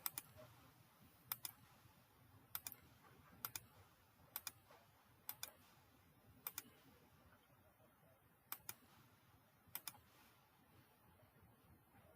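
Sharp clicks from computer controls, each a quick double press-and-release, nine in all about a second apart, with a gap of about two seconds in the middle, over a faint hiss.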